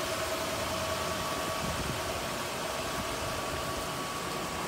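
1977 Mercury Monarch's engine idling steadily: an even hum and hiss with a faint steady whine.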